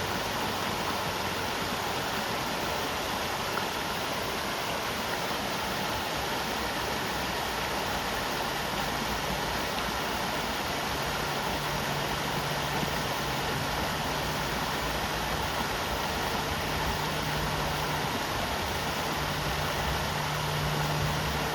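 The River Tolka flowing, a steady rush of water. A low steady hum, with the tags pointing to an idling engine, joins about halfway through.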